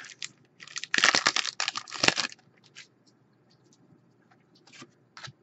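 Trading-card pack wrapper being torn open and crinkled, a burst of about a second and a half, followed by a few faint rustles and ticks of handled cards.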